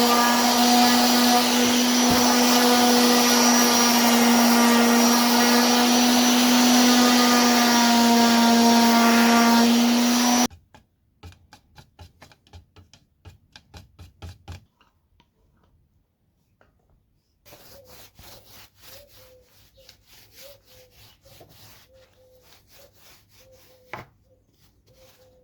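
Handheld electric power tool running steadily on wood, with a loud, even hum, until it stops abruptly about ten seconds in. After that there are only faint scattered clicks and light handling sounds.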